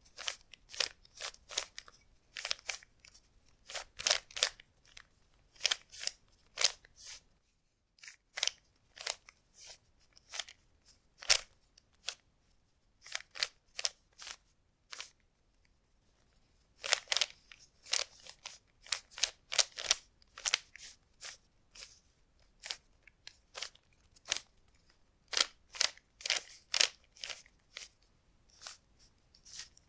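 Rubik's cube being turned by hand: quick plastic clicks and clacks as the layers snap round, coming in irregular runs of several turns with short pauses between.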